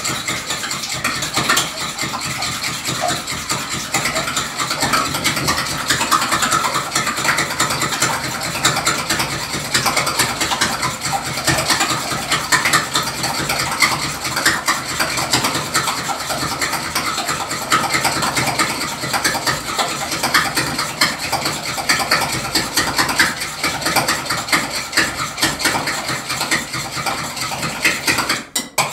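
A fork beating an egg mixture in a glass bowl: a rapid, continuous clatter of fork against glass, breaking off briefly near the end.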